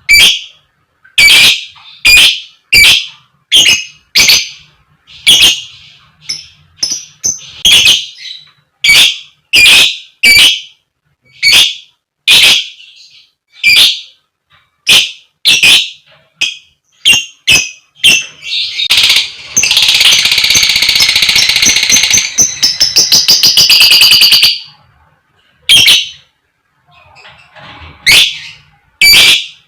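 Lovebird giving loud, harsh 'koek koek' calls, short and repeated about once or twice a second, breaking about two-thirds of the way through into a rapid chattering run of some five seconds before the single calls resume.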